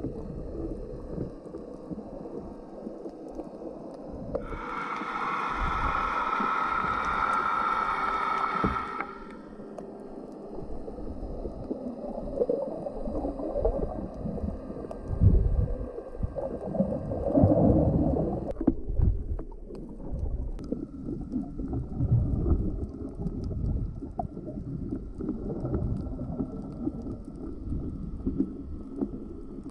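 Underwater sound picked up by a submerged camera while snorkeling: muffled sloshing and low rumbling of moving water. About four seconds in, a steady pitched hum sounds for roughly four seconds.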